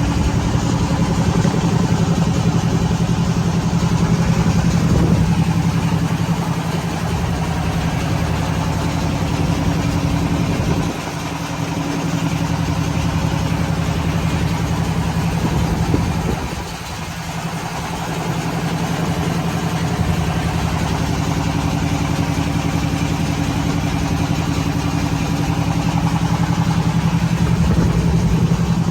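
Motorboat engine running steadily. Its note eases off briefly twice, about eleven seconds in and again around seventeen seconds, then picks back up.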